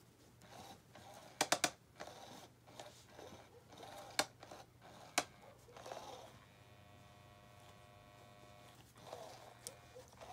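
Sharp plastic clicks and rustling as cats paw and bite at a SmartyKat Hot Pursuit toy under its nylon cover, then the toy's small electric motor whirs steadily for about three seconds.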